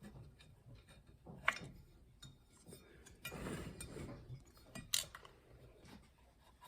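Light metallic clicks and scraping from small transmission parts being worked by hand: a clutch piston being seated into its drum with a feeler gauge. Sharp clicks about a second and a half in and about five seconds in, with a stretch of scraping between them.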